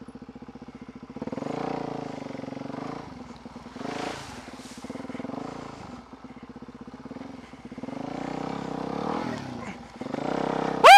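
Single-cylinder four-stroke engine of a Suzuki DR-Z400 dirt bike running under way, its revs rising and falling with the throttle. A brief, very loud high chirp that rises and then falls comes right at the end.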